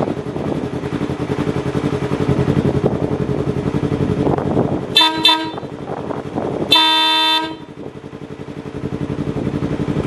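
Yamaha R3 sport bike's parallel-twin engine idling, with a newly fitted Wolo electric air horn sounded as a test: two short blasts about five seconds in, then one longer, louder blast of just under a second.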